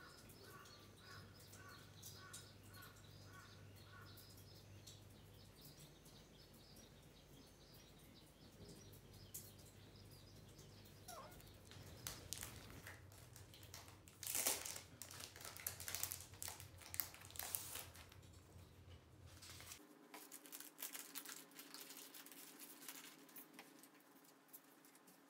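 Quiet ambience. A small bird chirps over and over for the first few seconds. Later come scattered light clicks and taps, loudest about halfway through.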